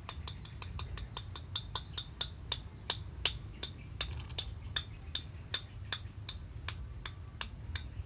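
Knife blade scraping scales off a small fish in quick, even strokes: a run of sharp little clicks, about four a second at first and slowing to two or three a second.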